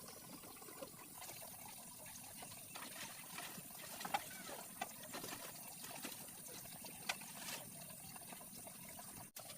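Water trickling and splashing, with a few sharp clicks or taps about four, five and seven seconds in.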